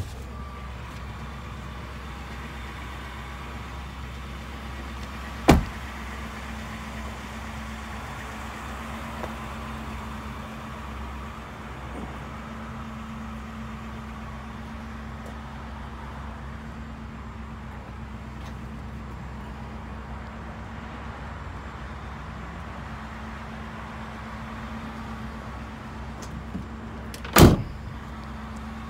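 Two sharp slams over a steady low hum: one about five seconds in, and a louder, doubled one near the end as the 2019 Ford F-150's aluminium tailgate is shut.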